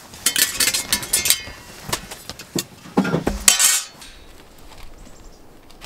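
Metal tent stakes clinking and clattering as they are handled and gathered up, in quick clusters of sharp clicks, the loudest near three seconds in, stopping about four seconds in.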